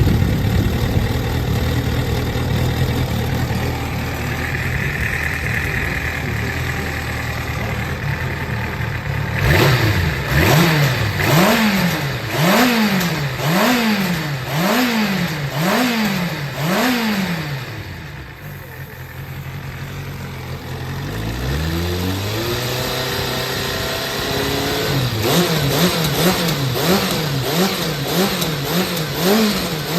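Kawasaki ZRX400 inline-four motorcycle engine idling, then revved in about eight blips roughly a second apart. The idle sags low and picks back up, and near the end it is blipped quickly, about twice a second. It runs without abnormal noise, as the seller states.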